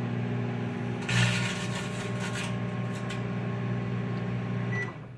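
Microwave oven running with a steady hum while heating a foil-lined chip bag. About a second in, a burst of crackling lasts about a second and a half as the bag shrinks in the heat. The hum stops near the end with a short beep.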